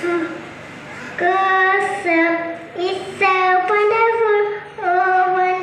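A young girl singing a devotional song unaccompanied into a microphone, in long held notes with short breaks for breath.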